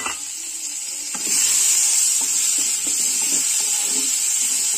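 Sliced onions and fried potato pieces sizzling in hot oil in a kadai, stirred with a spatula that scrapes the pan. The sizzle grows louder a little over a second in.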